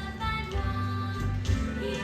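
Recorded music with singing, over a steady bass beat.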